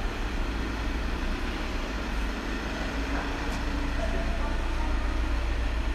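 Steady low rumble and hum of an underground parking garage, with faint distant voices now and then.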